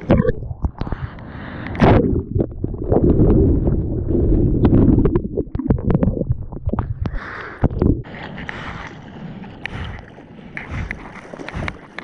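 Whitewater from a broken wave washing over a camera mounted on a surfboard: a loud churning rush of foam and water, heavy and low for the first several seconds. It then eases into lighter splashes and drips against the board.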